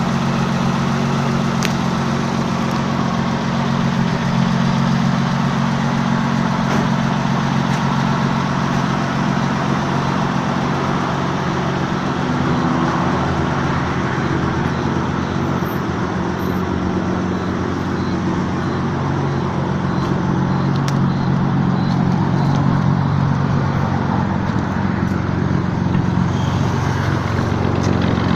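Tornado 230 motorcycle engine idling steadily through an aftermarket Gladiator exhaust.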